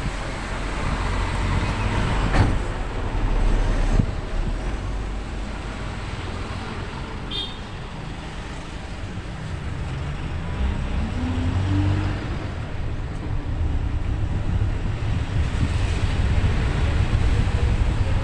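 A minibus engine and road noise heard from inside the passenger cabin. There are a couple of sharp knocks in the first few seconds, and the engine revs up in a rising tone about ten seconds in.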